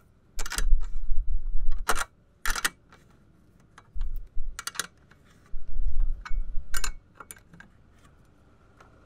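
Spanners clinking against a nut and bolt as they are tightened on an aluminium solar-panel mounting bracket: scattered sharp metal clinks, along with a few dull low rumbles.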